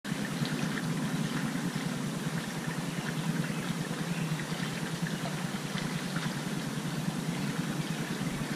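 Shallow creek running over rocks: a steady rushing of flowing water.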